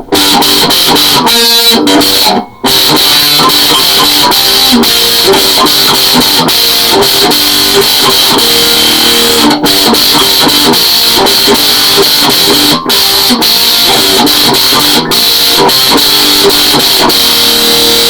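SG electric guitar played through a Boss Metal Zone distortion pedal: a loud, heavily distorted riff of quick notes, with a brief break about two and a half seconds in.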